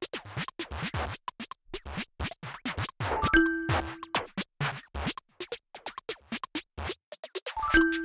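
Background music with a busy, repeating beat.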